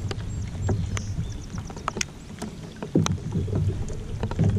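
Scattered knocks and clicks on a plastic kayak as a landing net holding a bass is lifted aboard, with a quick run of light ticks about a second in and a heavier knock about three seconds in.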